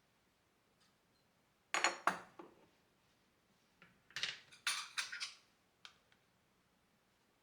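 Dishes and metal utensils clinking and clattering as they are handled, in a few short bursts of knocks with some ringing.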